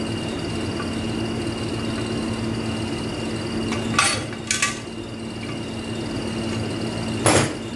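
Sharp metallic clinks of a bearing puller and tools against the transmission housing as the idler bearing race is pulled out: two clinks about four seconds in and a louder one near the end, over a steady background hum.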